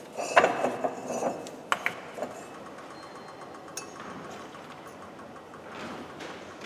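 Metal parts being handled on a hydraulic shop press: a steel wheel hub and press adapters knocking and clinking against the press bed, several sharp knocks in the first two seconds, then quieter handling.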